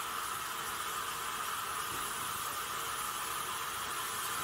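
Steady hiss of steam escaping from a standing steam locomotive, LMS Stanier Black Five No. 45212.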